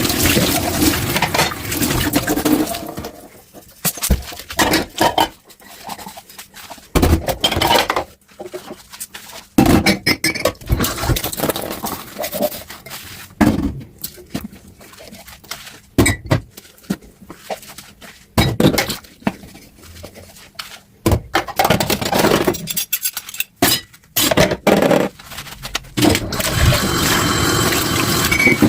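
Dishes clinking and knocking against each other in a kitchen sink, many separate sharp clatters. Tap water runs at the start, stops about three seconds in, and runs again near the end.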